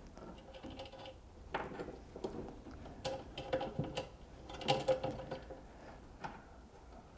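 Faint clicks and scrapes of hands fitting a cable to a power inverter's battery terminal and turning its plastic screw-down knob on the threaded post, in a few short clusters about 1.5, 3 and 5 seconds in.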